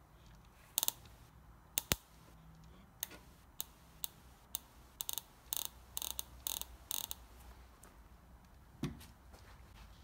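A run of sharp, light clicks and clinks from small metal parts of an HEI distributor test hookup being handled and connected: wires, clips and terminals. The clicks come thickest and fastest around the middle, and there is a single duller knock near the end.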